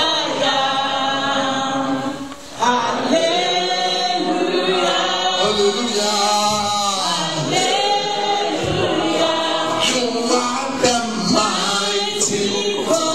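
A congregation singing a slow worship chorus together in long held notes, with a brief break about two and a half seconds in.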